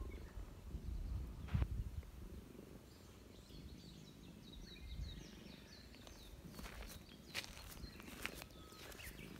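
Outdoor ambience with a low rumble: a small bird twitters in a quick run of short high chirps a few seconds in, then dry crackling rustles in the grass come in near the end as the cat shifts and rolls.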